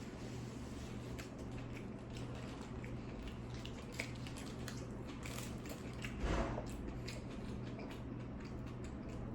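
Close-up mouth sounds of a person biting and chewing a toasted tuna sandwich, with many small wet clicks and crackles over a steady low hum. A louder, brief rustling sound comes a little over six seconds in.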